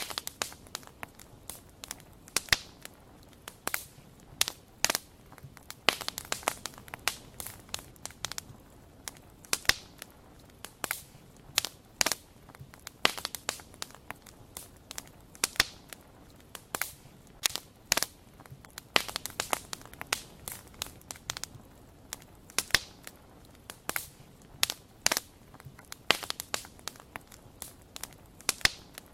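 Wood campfire crackling: irregular sharp pops and snaps, sometimes bunched in quick runs, over a faint steady hiss.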